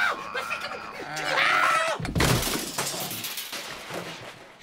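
A loud crash of something breaking and shattering about two seconds in, dying away over a second or so. It comes after a wavering, voice-like sound.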